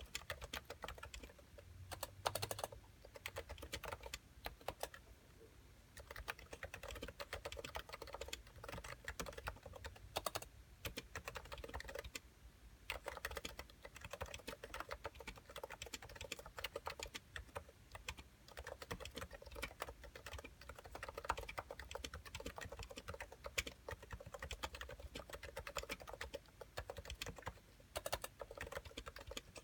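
Typing on a Cooler Master NovaTouch keyboard with 45 g Topre switches and Ducky thick PBT keycaps: a dense run of keystrokes, broken by short pauses about five seconds in and again around twelve seconds.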